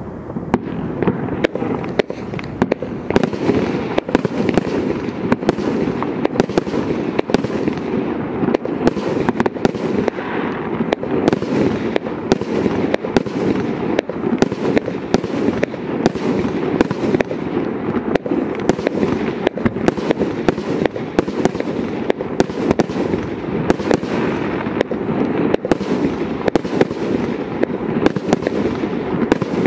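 Hallmark Fireworks 'Love It Loud' barrage firework firing continuously: a rapid, unbroken string of loud bangs, several a second.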